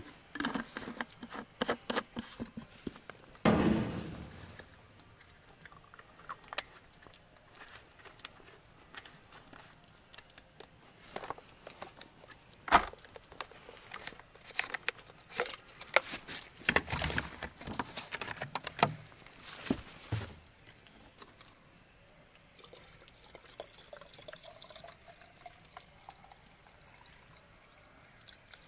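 Irregular clicks, knocks and clatter of objects being handled, with a short rush of noise about three and a half seconds in and a busier run of knocks past the middle.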